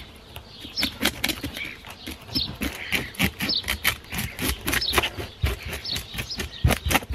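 Fish scaler scraping the scales off a whole snapper in quick, irregular strokes, each stroke a rasping click. Birds chirp now and then in the background.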